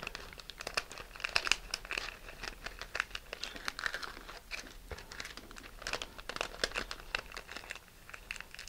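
Shiny plastic rocket streamer crinkling as it is rolled up tightly between the fingers: a fairly quiet, irregular run of small crackles.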